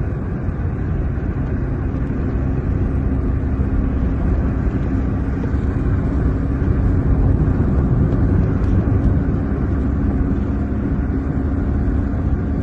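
Steady car engine and road rumble with a low, even hum, heard from inside a car driving in heavy freeway traffic.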